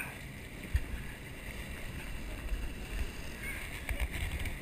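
Water rushing and churning alongside a fishing boat's hull over a low steady rumble, with a dull knock about a second in and another near four seconds.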